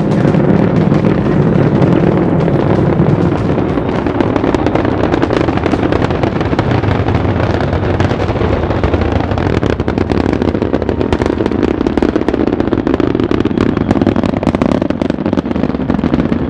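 Rocket launch heard from the ground, solid rocket boosters and engines burning during ascent: a steady deep roar laced with dense crackling. The crackle thickens about halfway through.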